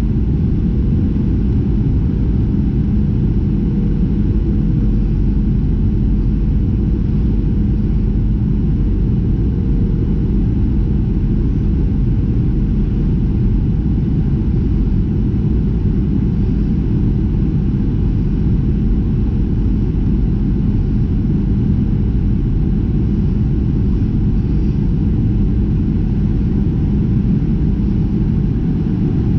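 Cabin noise of a Boeing 737-700: a steady, loud low rumble from its engines and the air around the fuselage, with a constant hum running under it.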